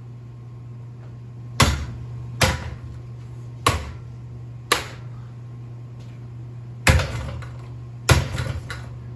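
Six heavy blows striking a ceiling fan, spaced about a second apart with a pause before the last two, which are followed by rattling of loose parts. A steady low hum runs underneath.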